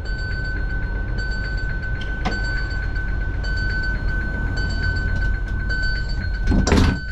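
TGV Duplex high-speed train setting off from a station: a low running rumble, with a steady high electronic tone and a repeating on-off beeping pattern above it. A single knock comes about two seconds in, and a louder brief clatter comes near the end.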